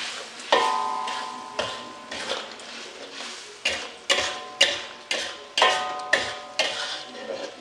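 A spatula scraping and knocking against an aluminium wok as sambal is stirred in hot oil: about a dozen sharp clanks, several with a brief metallic ring, over a faint sizzle. The sambal is being fried down until its oil separates.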